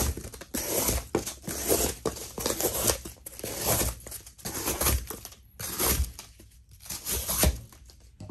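Damned Designs Fenrir wharncliffe knife blade slicing through double-layer corrugated cardboard in repeated strokes, about one a second, each cut a scraping, tearing rasp through the board.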